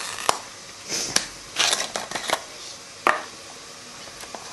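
Plastic spice shaker jar being opened and handled: its screw lid twisted off with a few sharp plastic clicks, and short rustling shakes of the powder inside.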